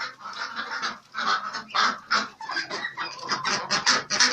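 Ducks calling over and over, many short calls in quick succession.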